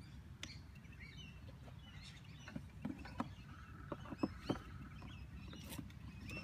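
Faint birdsong, with a cluster of light clicks and knocks around the middle as coaxial cable is pulled from its cardboard box and handled.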